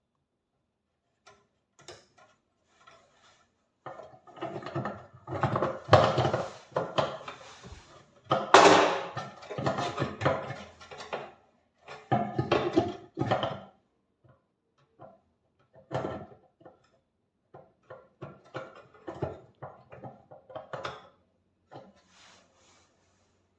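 Irregular clattering, knocking and scraping of tools and metal and plastic parts being handled while working on a microwave's turntable motor, in dense clusters through the first half and sparser knocks later.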